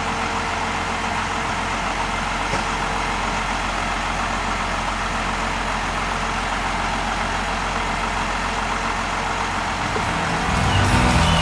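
A steady, unchanging engine-like drone with a low hum. Music comes in near the end.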